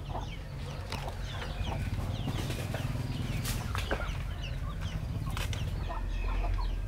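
Chickens clucking, with many short high chirps all through, over a steady low rumble.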